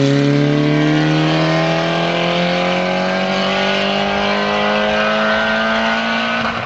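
Small hatchback rally car's engine pulling hard under acceleration. The revs climb slowly and steadily in one long pull, then drop suddenly right at the end.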